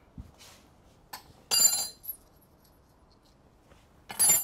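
Metal hand tools and fittings clinking on a concrete garage floor: two sharp, ringing metallic clinks, about a second and a half in and again near the end, with a few light knocks between.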